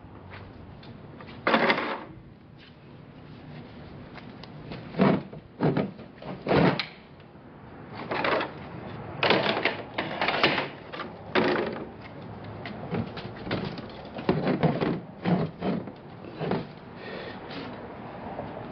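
Plastic dollies and totes and a metal skate-wheel roller conveyor being handled and set down while unloading a trailer: irregular clatters and knocks, a dozen or more, with the loudest about a second and a half in and around five seconds in.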